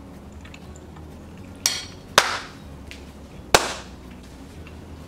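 Three sharp hand claps spread over about two seconds, the last two loudest, each with a short room echo.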